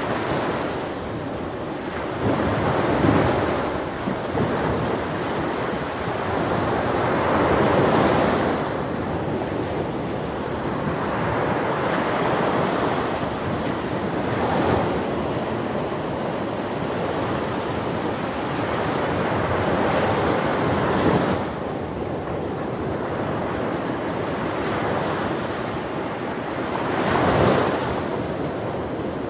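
Ocean surf: waves breaking and washing onto a beach in a continuous rush that swells louder about every five to seven seconds, with wind on the microphone.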